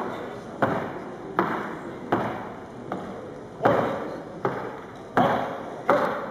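Pipe band drum beating a steady count, about one stroke every three-quarters of a second, each stroke ringing out before the next.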